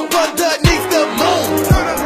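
Hip hop beat: fast hi-hat ticks over a melody, with two deep bass hits about a second apart, each sliding down in pitch.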